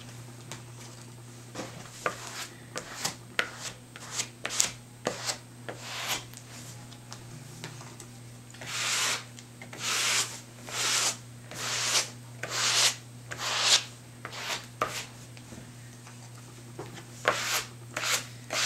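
Plastic spreader scraping and smoothing thick methyl cellulose paste across damp Thai mulberry paper in short strokes, working the paste evenly into the paper. In the middle comes a run of about six longer, louder strokes roughly a second apart.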